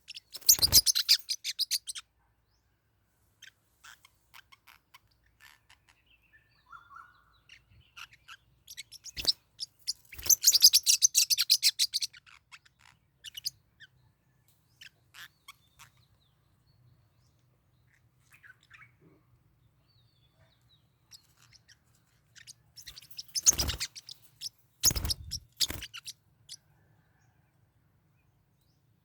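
Forpus parrotlets squabbling: three bursts of rapid, high chirping, with a few dull thumps among them and scattered single chirps between.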